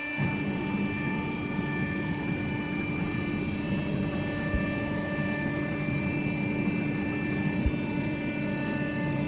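Automatic strapping machine running: a steady, noisy mechanical drone with a low rumble. It starts suddenly and keeps going for about nine seconds.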